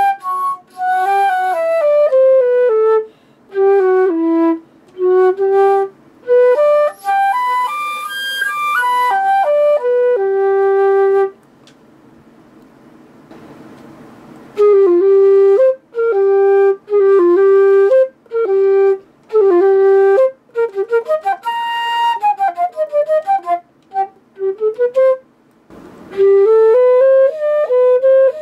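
Solo concert flute playing, with quick runs of notes and some held notes. About eleven seconds in the playing stops for a few seconds, then starts again, with another short break a couple of seconds before the end.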